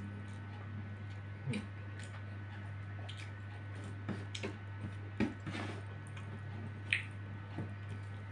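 Close-up eating sounds: fingers picking duck meat off the bones and chewing, soft wet squishes and smacks with a few sharper clicks, the sharpest about one and a half, five and seven seconds in, over a steady low hum.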